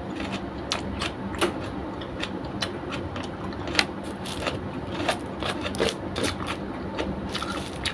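Close-up mouth sounds of eating: chewing and lip-smacking in a string of irregular wet clicks, over a steady low hum.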